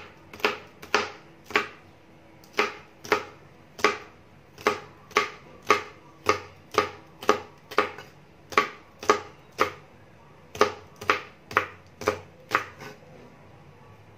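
Kitchen knife chopping long beans on a plastic cutting board: sharp knocks of the blade on the board, about two a second, with a few short pauses.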